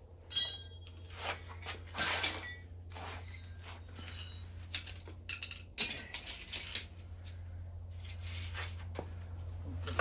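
Small metal hardware, bolts, nuts and brackets, clinking and rattling as it is handled and set down, with a few sharp ringing clinks about half a second, two seconds and six seconds in, over a steady low hum.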